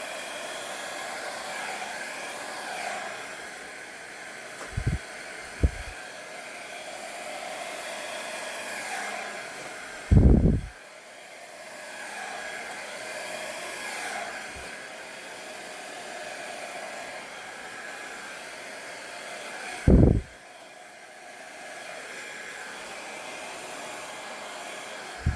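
Travel mini hair dryer running steadily on its low, cool setting, a whirring rush of air with a faint steady whine. A few short, loud low thumps break in, the biggest about ten and twenty seconds in.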